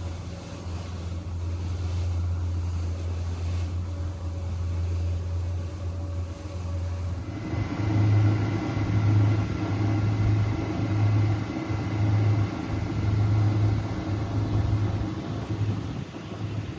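Boat engine running with a steady low drone. About seven seconds in, the sound changes to a low throb that pulses roughly once a second, with a faint steady whine above it.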